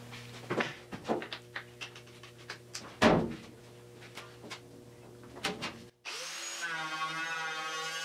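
Scattered clicks and knocks of handling for about six seconds, then, after a sudden cut, an angle grinder fitted with a paint-stripping disc starts and runs steadily at an even pitch.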